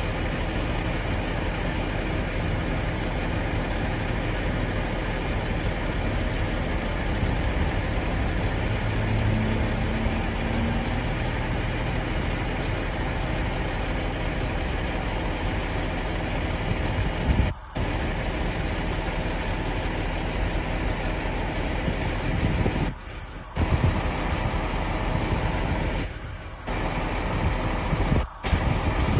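Diesel engine of a car transporter truck idling steadily. Near the end the sound cuts out briefly several times.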